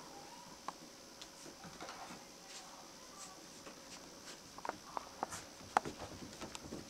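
Australian Terrier puppies scuffling and padding about on a wood floor and blanket: light scrabbling and claw clicks, with a few faint short squeaks. A quick run of sharper clicks comes about two-thirds of the way in.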